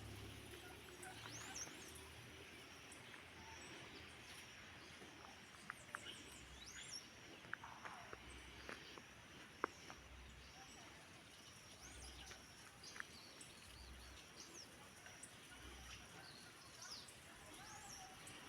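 Faint bird calls: scattered short chirps, some rising and falling, over a low outdoor hiss, with a few small clicks.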